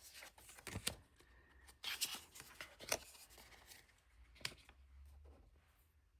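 Tarot cards of thin, cardboardy cardstock being handled: the cards slide and rustle against one another, with four sharp taps as cards are flicked or set down.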